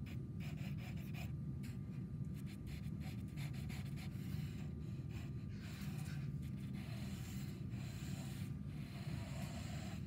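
Sienna conte crayon scratching across paper in quick short strokes, thinning out after about six seconds, over a steady low hum.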